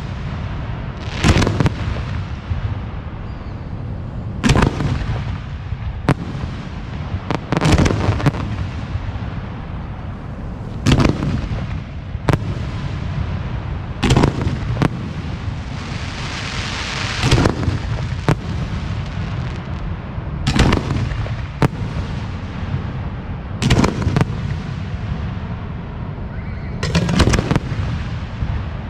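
Aerial firework display shells, 4 to 6 inches, bursting in a continuing series of loud booms, one every one to three seconds, some in quick pairs. About halfway through, a hiss lasting a couple of seconds runs between the bangs.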